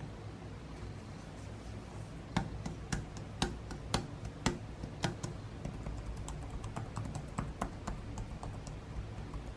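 Keys on a Lenovo ThinkPad T490 laptop keyboard being pressed: about six firm key strokes roughly half a second apart starting a couple of seconds in, then quicker, lighter typing.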